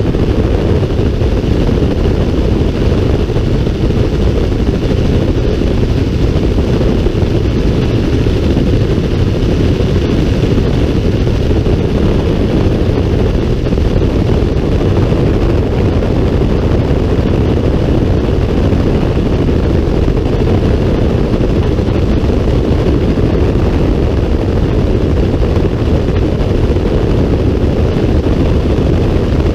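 Helicopter in flight: a loud, steady engine and rotor noise that does not change.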